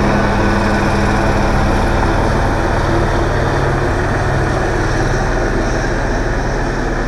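Loud, steady engine drone with a low hum.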